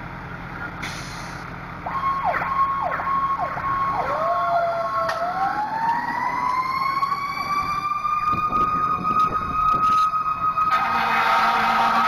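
Fire apparatus sirens starting about two seconds in over the idling engine: a steady wail broken by quick downward chirps, then a siren winding up in pitch and holding a high, steady wail. A horn blast sounds near the end.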